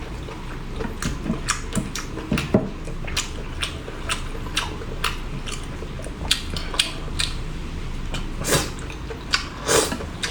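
Someone eating seafood: a run of irregular sharp clicks and cracks, with chewing.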